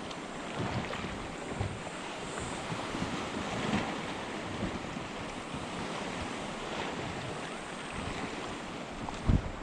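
Steady noise of surf and wind buffeting the microphone, with a short thump near the end.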